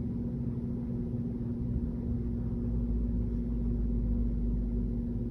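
A steady low hum with a held tone and a low rumble under it, swelling slightly in the middle.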